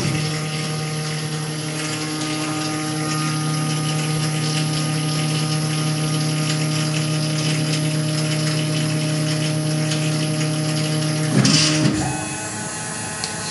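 Tormach PCNC 1100's stepper-driven Z axis homing during referencing: a steady motor whine with one pitch as the spindle head rises at constant speed. About eleven and a half seconds in, the whine stops with a short burst of noise as the axis reaches its home position, and a quieter tone follows.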